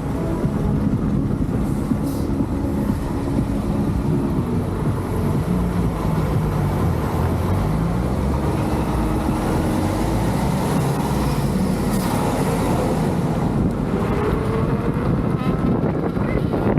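Leaperkim Patton electric unicycle's tyre rolling on the road while riding, a steady hum with pitched tones that rise and fall as the speed changes.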